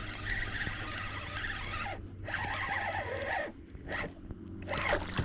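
Spinning reel being cranked, its gears giving a scratchy whir as line is reeled in. It comes in several bursts with short pauses between them.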